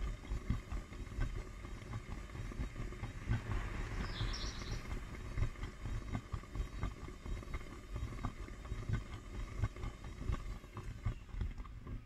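Hotpoint front-loading washing machine running its spin cycle with no pressure switch, so the drum turns while still full of water and suds: a steady motor whine over low rumbling and irregular sloshing thuds, with a short high squeak about four seconds in.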